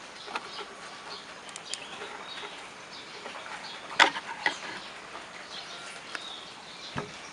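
Steady rain falling on foliage and roof tiles, an even hiss with scattered sharp drops and drips, the loudest about four seconds in.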